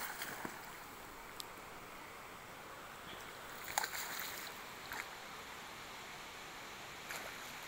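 Faint steady water noise with a few small splashes. The loudest splash comes about four seconds in, as a snakehead breaks the surface and leaves a swirl.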